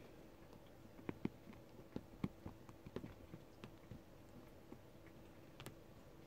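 Faint, irregular soft taps and scratches of kittens' paws and claws on couch upholstery as they play-fight.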